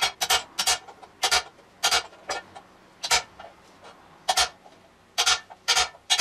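Hammer tapping a metal drift held on a bearing, driving it into a BMX frame's bottom bracket shell: about a dozen sharp metallic taps at an irregular pace, each ringing briefly.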